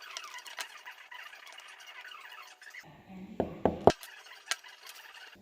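Small metal carburetor parts being handled and worked on a bench: squeaking and scraping at first, then a few sharp clicks and knocks about three to four seconds in, and one more click shortly after.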